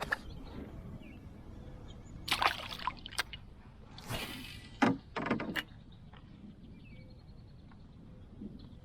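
Water splashing and sloshing in a few short bursts, the loudest around two and a half seconds in and again between four and five and a half seconds in.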